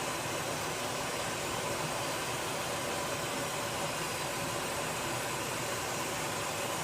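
Gas escaping in a steady, even hiss that holds at one level throughout.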